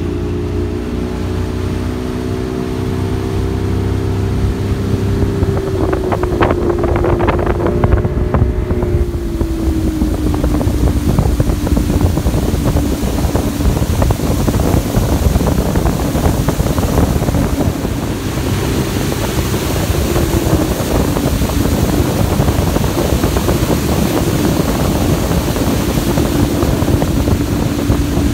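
Bass boat's outboard motor running under way, its pitch climbing in the first few seconds and then settling to a steady note after about ten seconds. Wind on the microphone and the rush of water along the hull rise with the speed.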